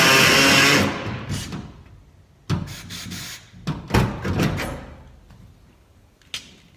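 Air-powered cutting tool running against the sheet-steel door panel, shutting off abruptly about a second in, followed by a few sharp clicks and knocks.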